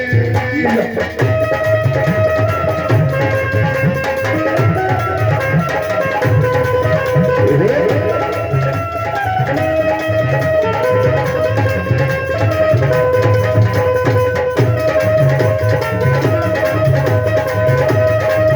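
Instrumental interlude of live Punjabi devotional folk music: a hand drum keeps a steady rhythm under a melody instrument playing held notes.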